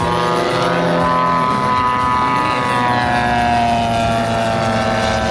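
Propeller-driven gasoline engines of giant-scale radio-controlled aerobatic model planes in flight, their note gliding up and down as the planes manoeuvre and pass.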